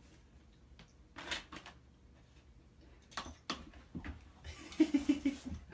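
A dog playing with a small ball on a wooden floor: scattered light knocks and taps, then a short quick pulsing sound about five seconds in.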